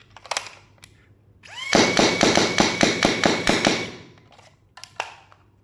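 AIT Lightning foam dart blaster emptying a ten-dart magazine in full-auto. Its motor spins up with a rising whine, then fires a fast even string of shots, about five or six a second for roughly two seconds. There are a few short clicks from magazine handling before and after.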